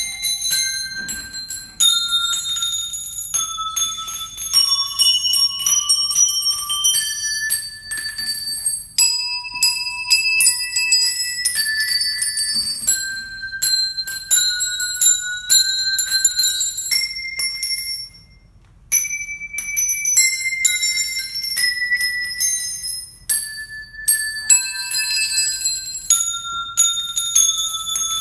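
Bell-like chime notes struck one after another at changing pitches, making a melody of high, ringing tones. The notes pause briefly about two-thirds of the way through, then carry on.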